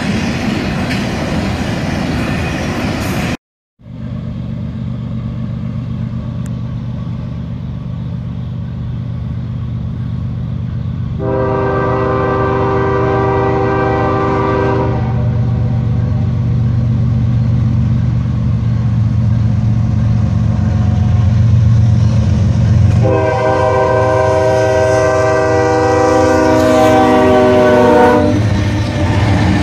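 A double-stack intermodal freight train rolling past, wheels clacking over the rails. After a cut, an approaching freight train's rumble grows and its locomotive air horn sounds two long chord blasts, about four and five seconds long, the second ending near the close.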